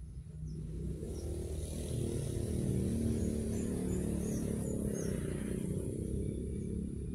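Low rumble of a motor vehicle engine running, swelling in over the first couple of seconds and then holding steady.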